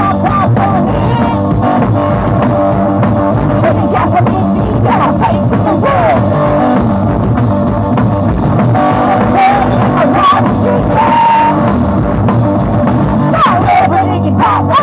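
Live punk blues rock band playing loudly: electric guitar over a drum kit, with a voice singing at times.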